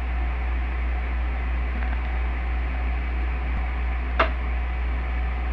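Steady low background hum with a faint hiss, and a single short click about four seconds in.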